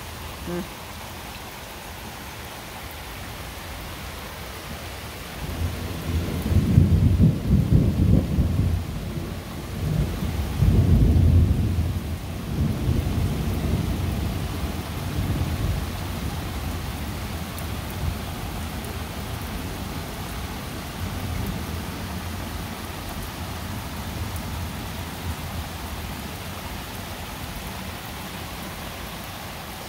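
Steady rain falling, with a long roll of thunder that builds about six seconds in, swells twice and then slowly rumbles away.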